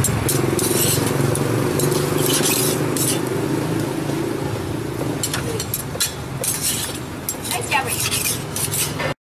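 A metal spatula repeatedly clinks and scrapes against small iron pancake pans on a street-food cart's stove, over a steady low hum. All sound cuts off suddenly near the end.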